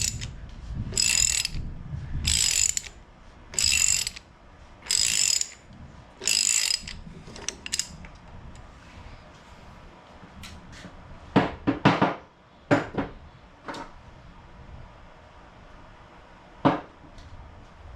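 Ratchet wrench being worked back and forth, about six rasping strokes of clicking roughly one every second and a third, then stopping; a few sharp metal knocks and clanks follow in the second half.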